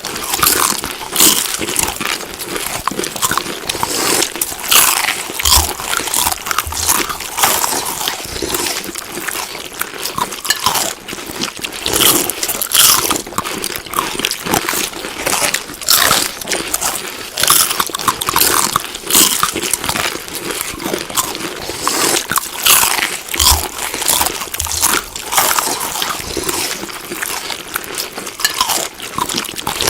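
Close-up chewing and biting of crunchy food: a continuous run of irregular crunches and clicks, several a second.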